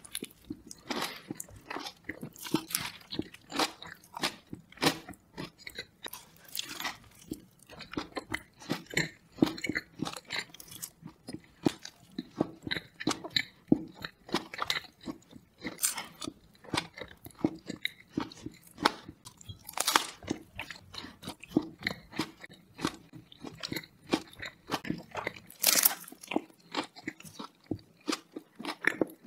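Close-miked biting and chewing of a bacon cheeseburger on a sesame bun: a dense, irregular run of soft crunches and clicks, with a few louder bites standing out.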